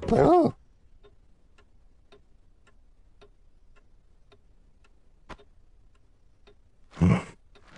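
A clock ticking steadily, about two ticks a second. A short, loud wavering note opens it, and a loud short sound comes about a second before the end.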